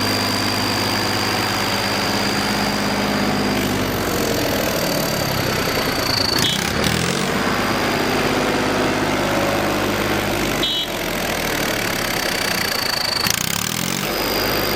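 Tractor diesel engine fitted with an aftermarket turbo whistle in its exhaust silencer, running with a steady high whistle over the engine note. It is revved up twice, the engine pitch climbing to a short loud peak about six seconds in and again about thirteen seconds in.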